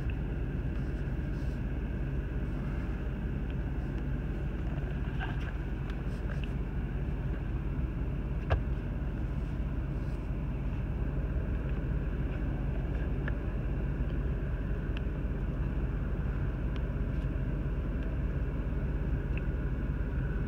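Truck engine idling, a steady low hum heard from inside the cab, with a few faint clicks, one a little sharper about eight seconds in.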